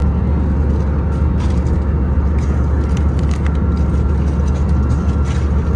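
Steady airliner cabin noise inside an Airbus A321 in flight: a deep, even rumble of the engines and rushing air, with a couple of faint steady tones above it.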